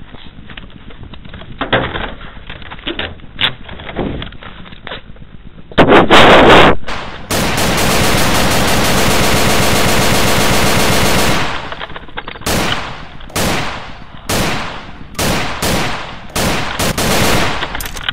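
Machine-gun fire sound effect. After a few seconds of faint clicks comes a loud blast, then an unbroken burst of rapid fire lasting about four seconds, then a string of short bursts.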